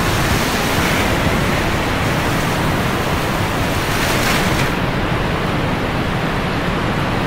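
Sea surf washing steadily, a continuous hiss that turns duller about five seconds in.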